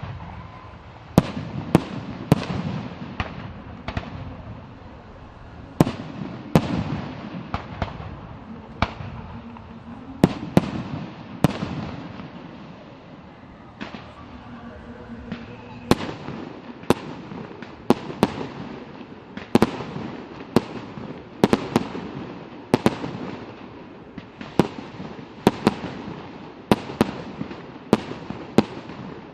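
Fireworks display: shells bursting in sharp bangs, about one a second and sometimes in quick clusters, each trailing off in an echoing rumble.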